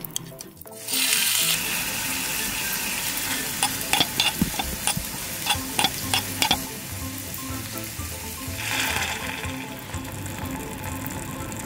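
Diced onion dropped into hot oil in a small steel wok, sizzling loudly from about a second in. The onion is then stirred with a metal utensil that clicks against the pan through the middle, and a second swell of sizzling comes near the end.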